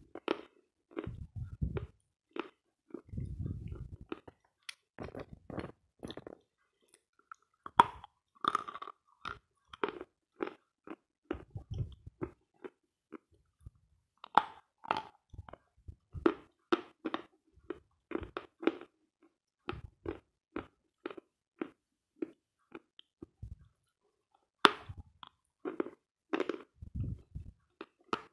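Dry chewing and crunching of dense edible 'Sloyka' chalk: irregular crisp bites and grinding crunches as it breaks down into a clay-like paste. The sharpest crunches come about 8 seconds in and again near the end, with a few low thuds in the first seconds.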